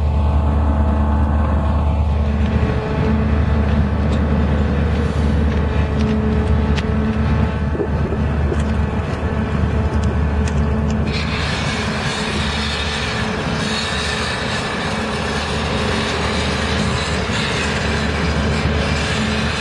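Steady low diesel drone of the Backacter 1100 pontoon-mounted long-reach hydraulic excavator working, with a few short knocks about six to eight seconds in. About eleven seconds in, a loud hiss suddenly joins and carries on.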